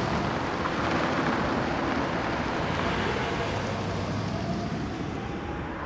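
A car running on a city street: a steady rush of engine and road noise.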